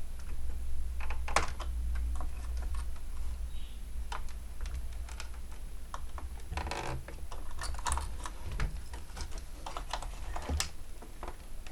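Irregular clicks and short scrapes of hands and a screwdriver working at the tight plastic casing and screws of a set-top box, over a low steady hum.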